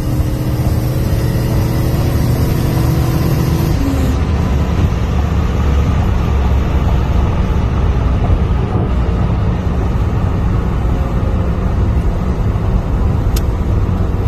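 Camaro Z28's LT1 5.7-litre V8 with an aftermarket Comp cam, heard from inside the cabin: it holds a steady note for about four seconds, then drops to a lower, uneven rumble.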